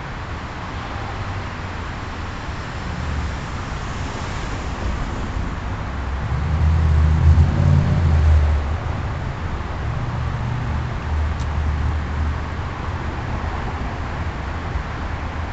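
A car driving past close by: engine and tyre rumble swell to their loudest about six to nine seconds in, then fade back into a steady outdoor rumble of traffic.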